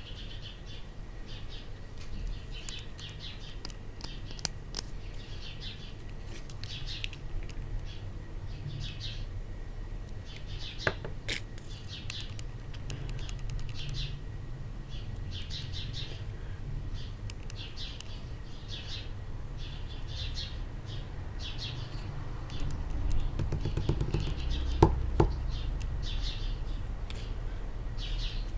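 Small birds chirping in short repeated calls, over a steady low rumble, with a couple of sharp clicks.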